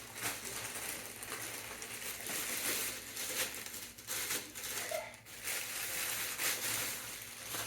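Packaging being handled and pulled off a part: irregular rustling and crinkling.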